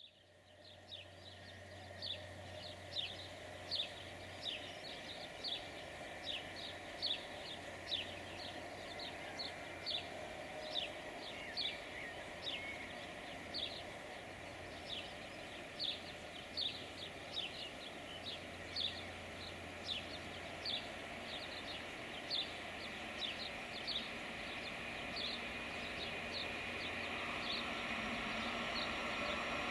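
Distant rumble of an approaching freight train hauled by an electric locomotive, growing slowly louder toward the end. A bird repeats a short, high, falling chirp more than once a second over it.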